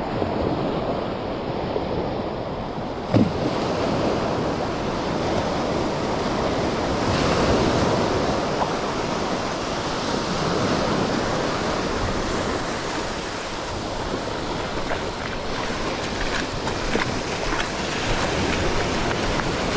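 Sea surf washing onto the beach, swelling louder about eight seconds in, with wind on the microphone. A single short knock about three seconds in.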